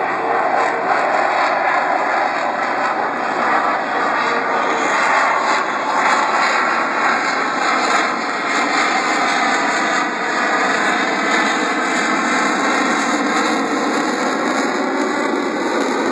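F-18 fighter's twin jet engines during a slow-speed pass, a loud, steady jet noise that holds without a break.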